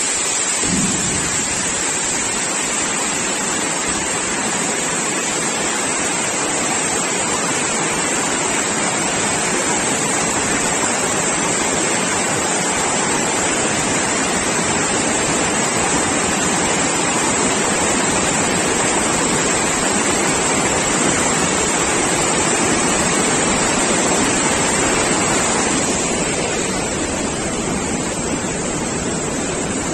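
Floodwater rushing and churning down steps and along a channel: a steady, loud rush of water.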